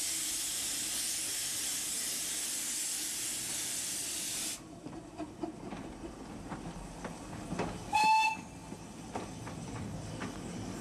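Small replica 0-4-0 tank steam locomotive hissing steam loudly and steadily; the hiss cuts off suddenly partway through. A short toot of its steam whistle comes about eight seconds in, with light knocks as the engine pulls away.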